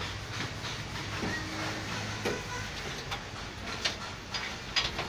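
Car workshop background noise: scattered, irregular metallic clicks and knocks over a low steady hum.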